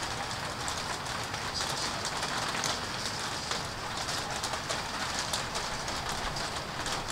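Steady rain falling during a thunderstorm: a constant hiss dotted with many small, irregular drop ticks.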